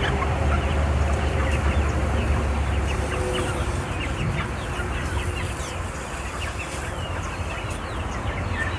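A flock of chickens clucking and chirping, with many short calls overlapping, over a steady low rumble.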